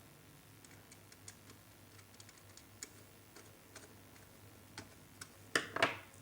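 Scattered small clicks and taps of hand work on the power plug's terminals while a wire end is fastened to the indicator terminal, with two louder knocks close together near the end.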